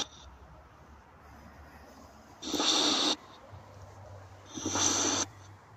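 Spirit box sweeping through radio stations: two short bursts of static, each under a second, about two seconds apart, switching on and off sharply. A faint low hum comes in a little past the middle.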